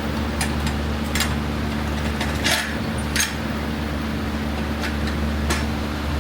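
Several sharp metallic clinks and clanks, like tools being handled, over a steady low mechanical hum.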